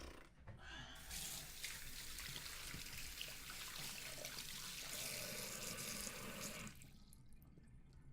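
Water running steadily for about six seconds, then shutting off.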